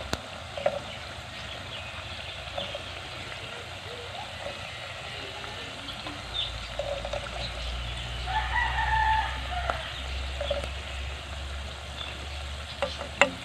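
Chickens calling in short scattered clucks, with a longer crow from a rooster about eight seconds in, over a low rumble in the middle of the stretch.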